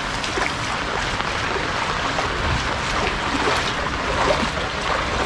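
Rain falling steadily onto shallow floodwater, with water splashing as someone wades through the flooded lane.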